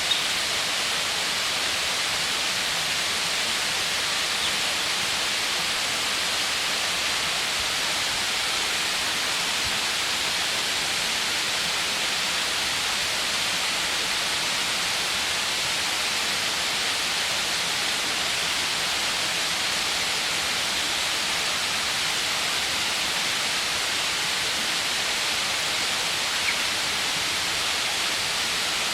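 Steady, unbroken rush of falling water, like a waterfall heard close up.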